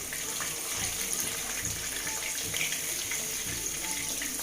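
Semolina-coated chicken pieces shallow-frying in hot oil in a pan: a steady sizzle with small crackles, one side left to brown before turning.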